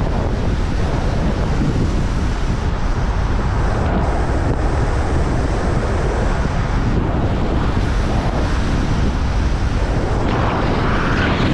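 Steady wind rush buffeting the microphone of a camera on a moving car, with the car's road noise underneath.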